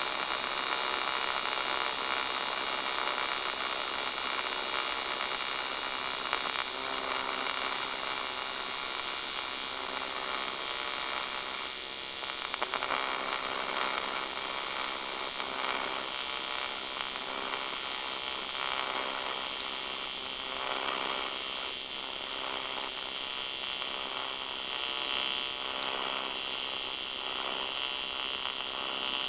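AC TIG welding arc on aluminum from a Longevity Tigweld 200SX, a steady buzzing hiss held without a break while a weld bead is laid with filler rod.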